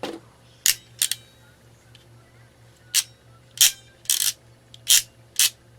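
Handheld modular-connector crimp tool being worked: a series of about eight sharp metal clicks, a few of them longer and rasping, as the handles are squeezed and released. The tool does not operate smoothly.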